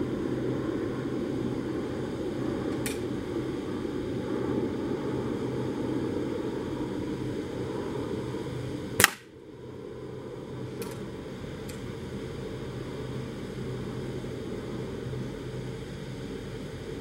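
A single air rifle shot about nine seconds in, one sharp crack over a steady background noise, with a few faint ticks before and after.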